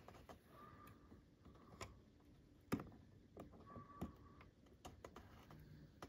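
Near silence broken by a few faint, sharp clicks of metal tweezers against an AirPods Pro earbud and its old speaker as the speaker is lifted out.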